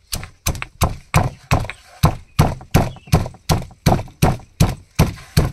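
Stone pestle pounding garlic and green chillies in a stone mortar: a steady run of dull thuds, about two and a half strikes a second.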